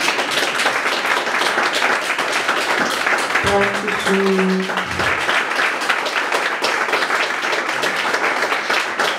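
Audience applauding steadily, many hands clapping. A single voice sounds briefly about halfway through.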